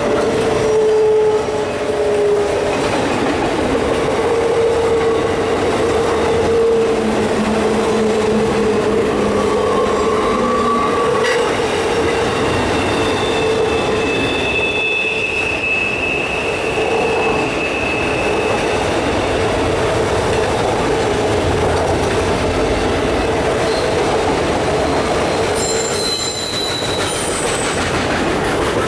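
Autorack freight cars rolling past, a steady rumble of wheels on rail with faint clacks over the joints. Wheel squeal comes and goes throughout, with higher-pitched squeals in the middle and near the end.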